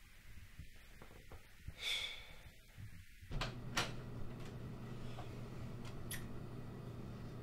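A short, sharp breath about two seconds in. Then a steady low hum sets in, with a few light clicks and knocks over it.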